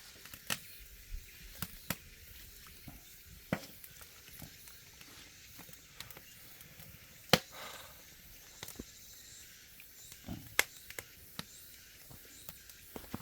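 Wood fire crackling under the pot: irregular sharp pops and snaps over a low steady hiss, with the loudest pops about seven and ten and a half seconds in.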